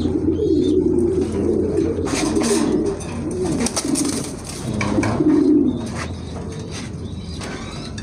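Domestic pigeons cooing: low, warbling coos repeating through the first few seconds and again about five seconds in.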